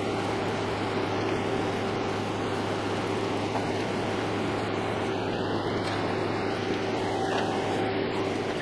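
Milling machine running steadily, an even whirring noise with a constant low hum and a steady tone.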